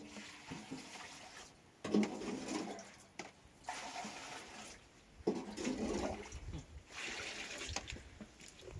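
Water poured from a small plastic jug into a basin, splashing in about five separate pours, one every second and a half or so.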